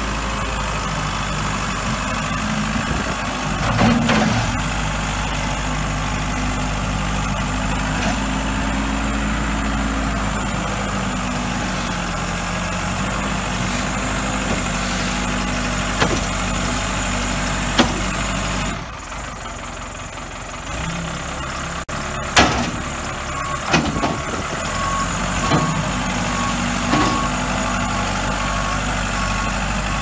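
Case 580SM backhoe's 95 hp Cummins diesel engine running steadily as the machine drives and works its front loader bucket, with a few sharp knocks along the way. The engine sound drops for a few seconds about two-thirds through.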